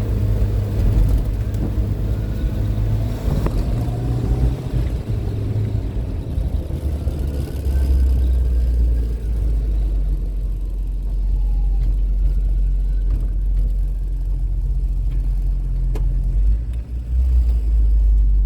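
MG Midget's small four-cylinder engine and road noise at driving speed, heard from inside the car, the engine drone stepping up and down several times as the throttle and speed change.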